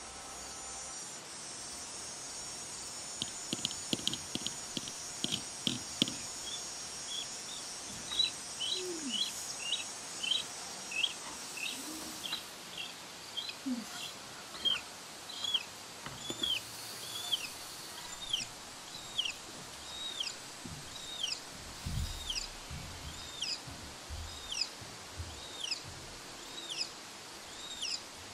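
Hatching chicken chick peeping: short, high, falling peeps repeated about two a second, beginning a few seconds in over a faint steady hiss, with a few soft low knocks near the end.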